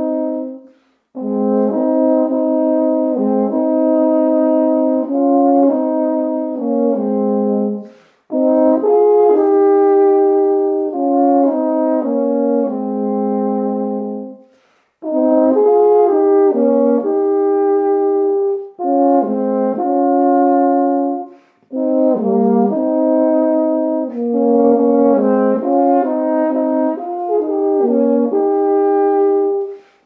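Two tenor horns playing a folk tune as a duet in two-part harmony, in phrases separated by short pauses for breath.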